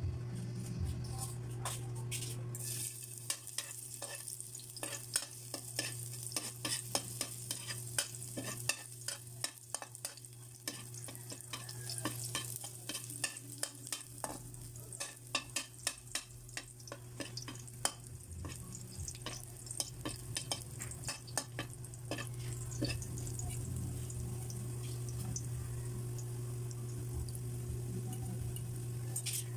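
Chopped garlic sizzling in a little hot oil in an aluminium wok, with a metal spatula scraping and clicking against the pan many times. A steady low hum runs underneath.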